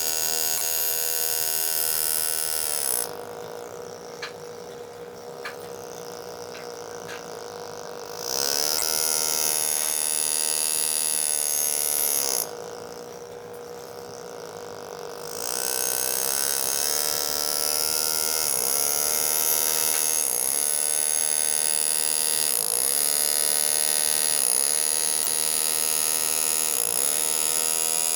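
Power engraving handpiece buzzing as it cuts into the steel of a shotgun receiver, its pitch rising and falling with the speed. It runs quieter and duller twice, for a few seconds each time.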